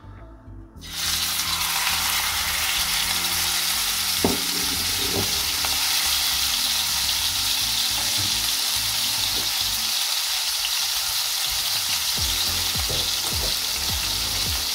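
Sirloin steak sizzling as it sears in hot rendered smoked lard in a frying pan. The sizzle starts suddenly about a second in, when the steak is laid in, then holds steady.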